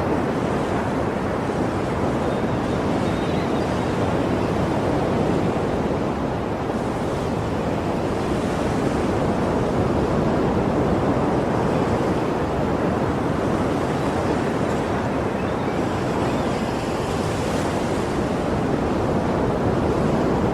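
Sea waves washing onto a shore: a continuous surf wash that swells a little about halfway through and again near the end.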